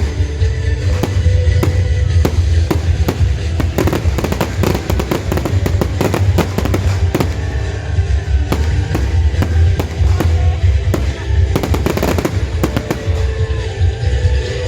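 Fireworks bursting and crackling, with a dense volley of bangs around the middle and another near the end, over loud music with a heavy bass.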